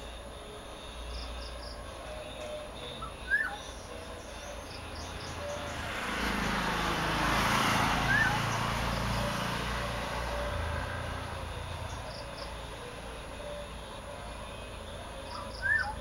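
Black-naped oriole giving short, sharp calls three times, about three seconds in, around eight seconds in and near the end. A passing vehicle swells and fades through the middle.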